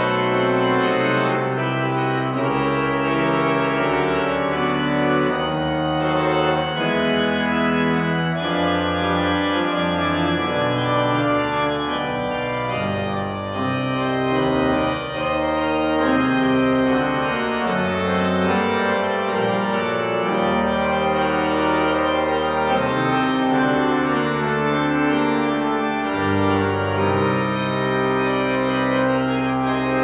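Church organ playing a Baroque piece: several sustained voices moving together over a deep pedal bass line.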